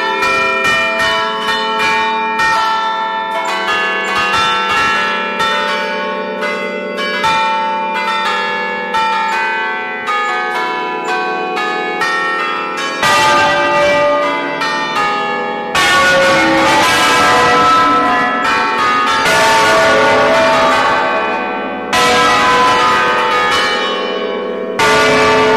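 Peal of several church bells rung in the Roman style ('alla romana'), the bells swinging on their wheeled frames and struck in quick succession so their tones overlap. About 13 seconds in the ringing grows louder and denser, with several bells clanging together.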